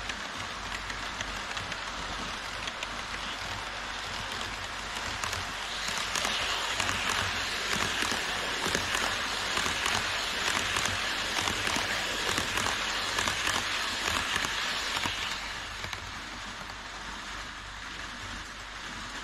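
HO scale model trains rolling on viaduct track: a steady clattering hiss of small wheels with fine clicking as a long rake of Koki 104 container wagons passes. About six seconds in it grows louder as an E5 series Shinkansen model runs close by, then drops back after about fifteen seconds.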